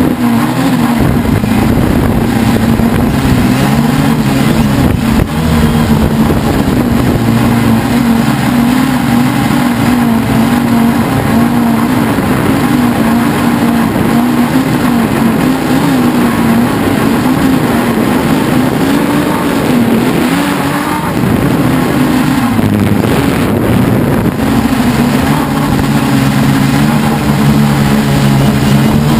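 Helimax Form 500 quadcopter's electric motors and propellers, heard from the onboard camera in flight: a steady buzzing hum that wavers slightly in pitch as the throttle is worked, with a constant rush of air over it. The hum dips briefly about twenty seconds in, then picks back up.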